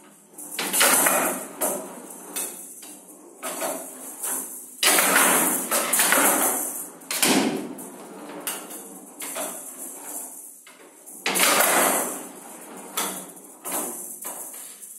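Showdown rally: the rattling ball is struck back and forth with wooden bats and knocks off the wooden walls of the table, with a run of sharp loud hits and quieter rattling and rolling between them.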